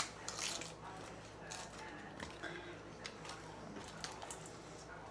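Faint handling sounds of eating at a table: scattered light clicks and rustles as a chicken nugget is dipped in a plastic sauce cup and nuggets are picked from a stainless steel bowl.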